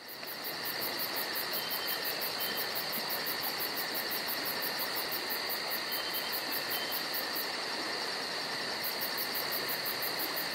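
Steady insect chorus, crickets or similar, fading in over the first second: a continuous high trill with a fast, even pulsing chirp above it.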